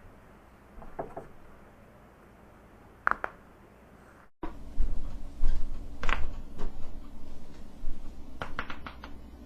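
Human joints cracking: a sharp pop about a second in and a quick double crack about three seconds in. Then, over a louder low rumble, a strong crack near the middle and a quick run of several cracks near the end.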